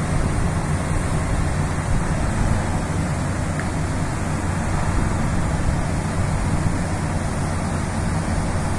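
Steady wind over an open deck mixed with the low, even drone of a car ferry's engines.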